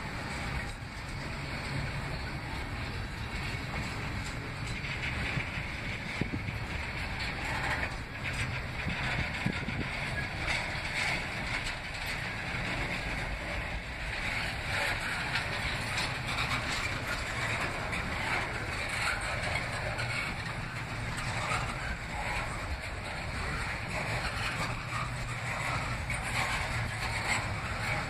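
Double-stack container well cars of a CSX freight train rolling past: a steady noise of steel wheels on the rails with a low hum and occasional clicks.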